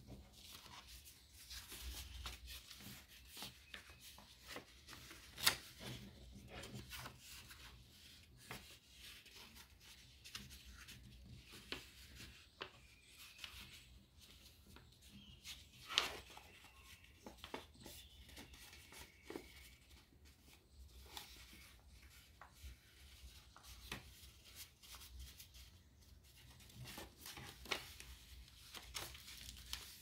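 A sheet of origami paper being folded and creased by hand on a tabletop: soft, irregular rustling and rubbing with sharp paper crackles, the loudest about five and a half seconds in and again around sixteen seconds in.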